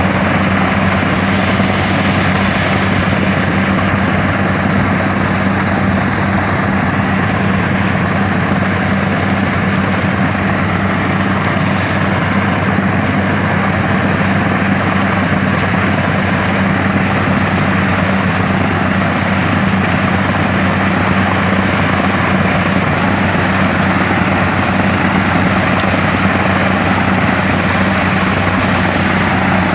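Engine-driven water-pipe drilling machine running steadily at constant speed, a loud even drone with a strong low hum that does not change.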